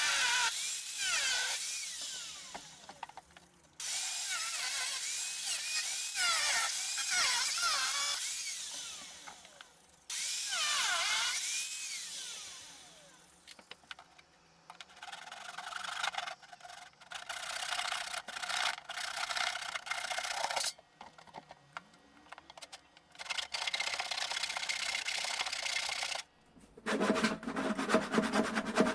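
A handheld power tool runs in several separate bursts, its pitch swinging up and down, with pauses between them. Near the end comes a lower, harsher grinding with rapid clicks.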